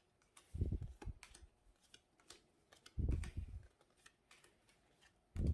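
Trading cards and plastic card sleeves being handled: light clicks and rustles, with two short, dull thumps, one about half a second in and one about three seconds in.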